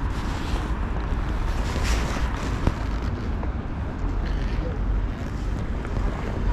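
Wind buffeting the microphone outdoors: a steady low rumble with a hiss above it, unbroken throughout.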